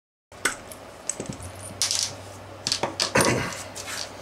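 Metal parts of an OS 120AX model glow engine handled on a bench: a string of sharp clicks and knocks as the cylinder head is lifted off and set down on the mat, over a faint steady hum.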